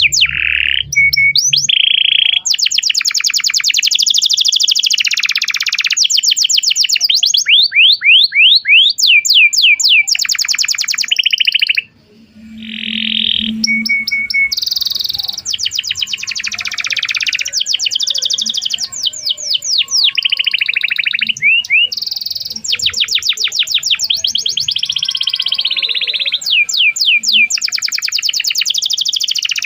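Domestic canary in full song: long runs of rapid trills and rolls, some rising or falling in pitch, one after another with only short gaps. The song drops out for a moment about twelve seconds in and resumes.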